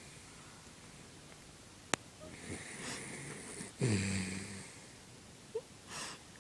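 Miniature dachshund snoring in its sleep: a long wheezy in-breath, then a short low snore about four seconds in. A single sharp click about two seconds in.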